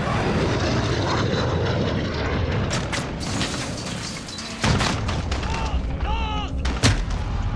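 Shooter video game battle audio: a steady aircraft drone overhead, a sudden explosion a little past halfway, and scattered gunshots.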